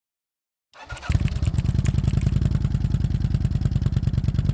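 V-twin motorcycle engine idling with a quick, even pulse. It comes in about a second in.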